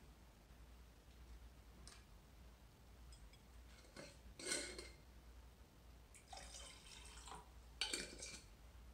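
Faint handling of a glass mason jar of water: a knock as it is lifted off the wooden tabletop about four seconds in, then a sharp clink and water moving inside as it is tilted near the end.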